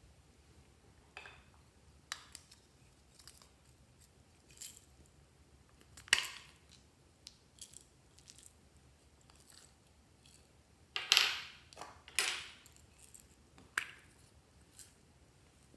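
Clear slime being worked by hand, making scattered sticky clicks and pops. The loudest comes about six seconds in, followed by two louder squelching pops close together near the end.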